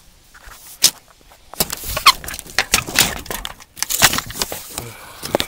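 Close, irregular crackling, rustling and sharp clicks from handling and movement in dry leaf litter, as a tape measure is worked around a dead buck's neck, with a brief squeak about two seconds in.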